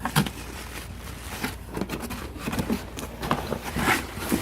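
Rustling and crinkling of packaging being handled, with irregular light knocks and scrapes, as items are taken out of a subscription clothing box.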